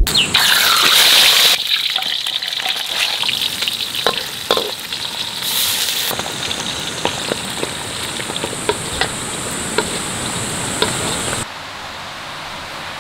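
A whole fish frying in hot oil in a wok, sizzling and crackling with scattered pops. The hiss swells when a liquid is poured into the pan. Near the end it gives way to a quieter, steady background.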